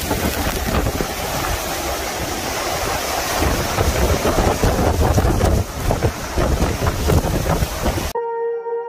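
Strong storm wind and heavy rain from a nearby tornado, gusting hard against the microphone with a low rumble. About eight seconds in it cuts off abruptly to sustained ambient music tones.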